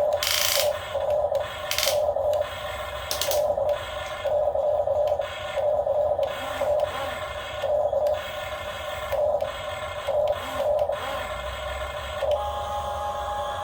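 Remote-control model excavator's small electric motor whirring in short, irregular spurts, about one a second, as the machine is worked. The spurts stop near the end and a steady tone comes in.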